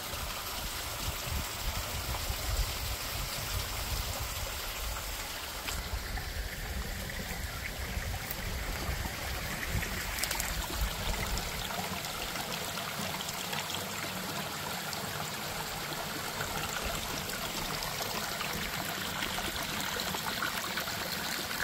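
Creek water rushing down between granite boulders and trickling over stones, a steady wash of running water in a creek bed that is flowing with runoff after weeks of rain. A low rumble sits underneath for roughly the first half, then drops away.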